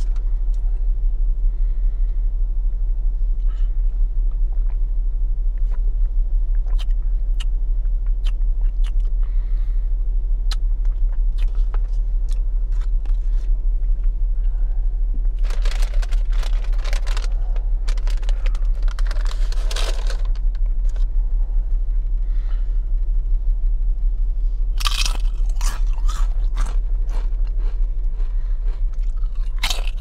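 Close-miked chewing and crunching of food, scattered sharp crunches with three louder, denser runs of crunching, about halfway through, a few seconds later, and again near the end, all over a steady low rumble.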